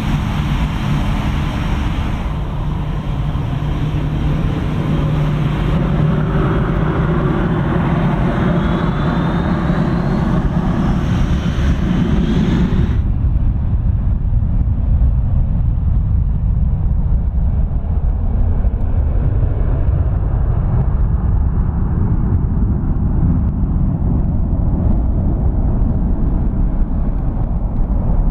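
De-icing truck spraying fluid, a loud hiss over a steady low engine hum; about thirteen seconds in the spray cuts off suddenly, leaving a low engine rumble.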